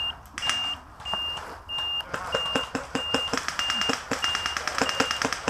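An electronic beeper sounds a steady, high, even beep about every 0.6 seconds, over sharp clicks and cracks of airsoft guns firing that come thick and fast from about two seconds in.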